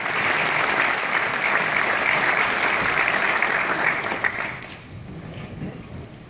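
Audience applauding, a dense patter of clapping that dies away about four and a half seconds in.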